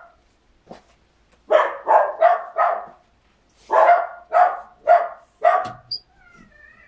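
Dogs barking in two quick runs of four sharp barks, the second run starting about a second after the first ends.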